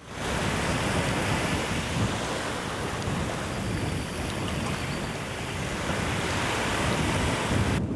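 Steady wind buffeting the microphone over the wash of the sea, with no other distinct sound; it cuts off just before the end.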